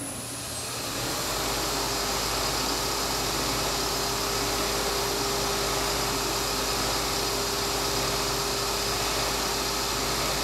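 Hardinge HC lathe with an OmniTurn CNC attachment running a motion demo cycle: a steady machine hum with a steady mid-pitched whine, building up over the first second or so and then holding even.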